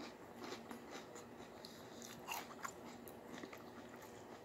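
Faint crunching and smacking of a mouthful of Cap'n Crunch cereal in milk being chewed, with a few slightly louder crunches about halfway through.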